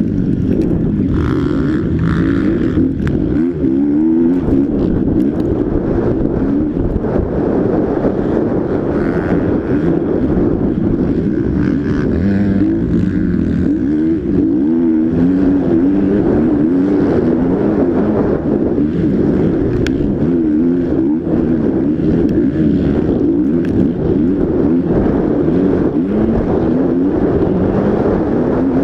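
Motocross bike engine heard from an on-board camera at race pace, its revs rising and falling again and again as the throttle is worked through the turns and straights.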